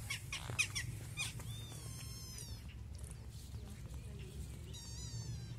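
Kittens mewing: two short, high-pitched mews, about two seconds in and near the end, over a steady low rumble, with a few light clicks or rustles in the first second and a half.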